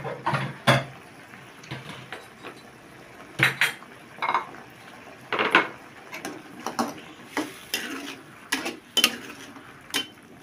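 A metal spoon scraping and clinking against a wok in irregular strokes as a sauce is stirred.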